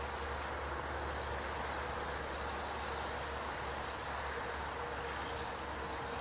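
Steady chorus of insects, a continuous high-pitched drone that does not change.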